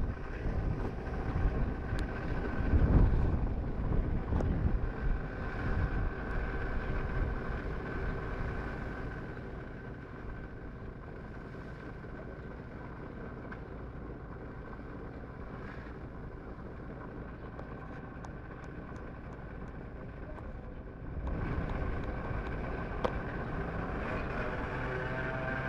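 A vehicle engine running steadily, with wind buffeting the microphone over the first several seconds. The sound grows louder again about 21 seconds in.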